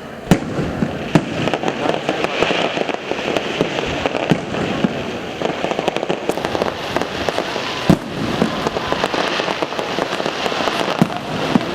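Aerial fireworks bursting: a few sharp bangs, the loudest less than a second in and again about eight seconds in, over dense, continuous crackling.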